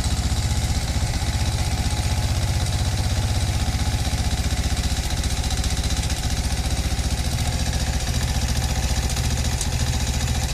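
Engine idling steadily with a rapid, even beat and a metallic knock that is still there with a bolt slightly loosened. The knock is heard with the engine warmed up; it was louder when cold.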